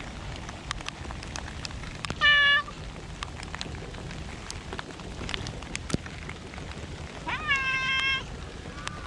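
A tabby-and-white cat meowing twice: a short meow about two seconds in and a longer one near the end that rises in pitch at its start. Rain falls steadily underneath, with drops ticking throughout.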